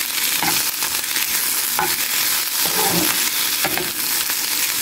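Corn kernels sizzling in a little oil in a frying pan over medium heat, stirred with a metal spatula that scrapes them across the pan at irregular intervals.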